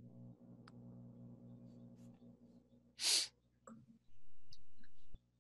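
A short, sharp breath sound about three seconds in, over a faint steady hum; a low steady buzz comes in for about a second near the end.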